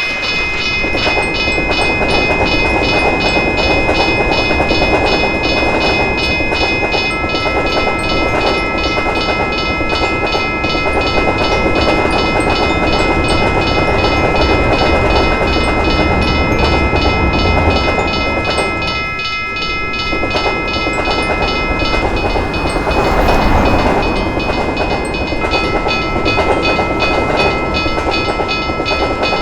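Railroad crossing signal bell ringing in fast, even strokes over the continuous rumble and wheel clatter of a passing train. There is a brief lull in the rumble about two-thirds of the way through.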